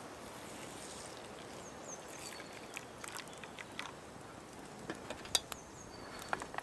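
Water poured from a metal camping kettle onto couscous in a metal pan: a steady, quiet pour. From about three seconds in come a few sharp clicks and a louder metallic knock about five seconds in, as the kettle is handled and set down on the grill.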